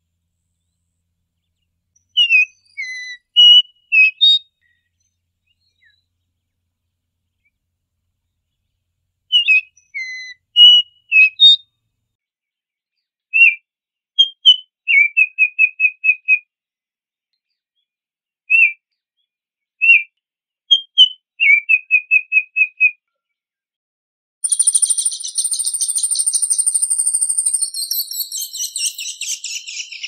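Yellow oriole singing: four phrases of clear, fluting whistles separated by pauses, the later ones ending in a quick run of repeated notes. About five seconds before the end a different sound takes over: a dense, fast buzzing trill with a steady high whine over it.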